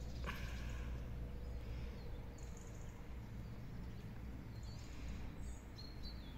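Quiet outdoor background: a steady low rumble with a few faint, short, high bird chirps, one of them near the end.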